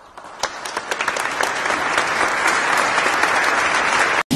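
Applause: a few separate claps swelling into dense, full clapping that cuts off suddenly near the end.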